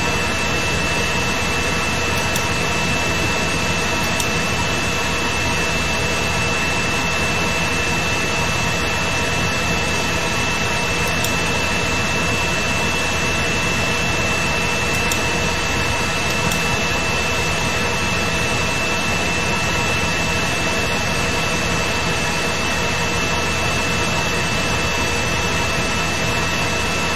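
Steady hiss with a constant high-pitched whine, unchanging throughout.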